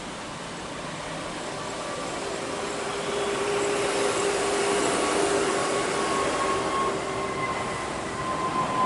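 Jet engines of a Batik Air Airbus A320-family airliner at takeoff thrust as it climbs out: a steady rushing roar that swells to its loudest a few seconds in, with a faint whine that sinks slightly in pitch as the jet passes.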